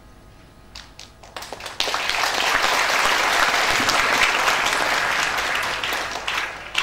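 Audience applauding: a few scattered claps about a second in, then full applause that fades away near the end.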